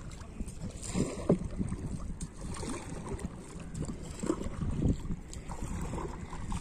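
Lake water lapping and splashing irregularly against the hull of a small paddled boat as it moves, with wind rumbling on the microphone.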